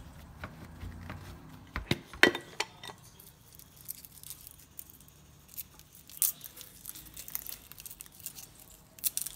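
A few sharp knocks about two seconds in, then dry garlic skin crackling and rustling in quick small crisp ticks as a clove is peeled by hand.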